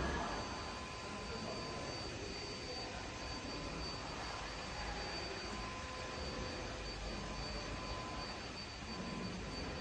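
Steady machinery noise on a factory floor: a constant drone with a thin high-pitched whine held throughout.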